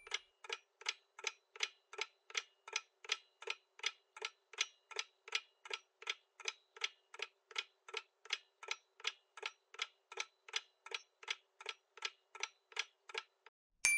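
Quiz countdown-timer sound effect: a clock ticking evenly, about three ticks a second, stopping just before a short bell chime at the very end.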